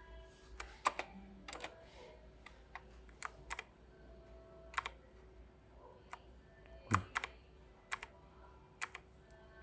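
Individual keys pressed one at a time on a Fuhlen Heimdallr mechanical keyboard with black switches: about a dozen separate keystroke clicks at an uneven pace, the loudest about seven seconds in.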